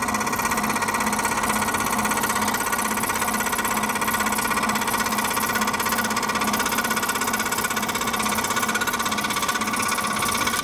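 Scroll saw running steadily, its blade moving up and down in a fast, even chatter as it cuts through a thin sheet workpiece along a marked line.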